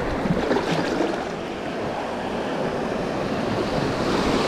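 Surf washing and breaking on an ocean beach, a steady rushing noise, with wind buffeting the microphone.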